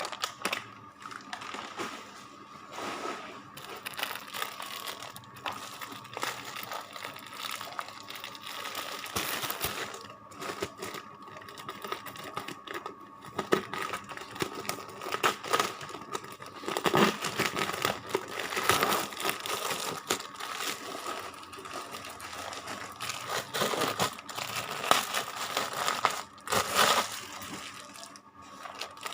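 Packaging crinkling and rustling as it is handled and unwrapped, in irregular bursts that grow louder about halfway through.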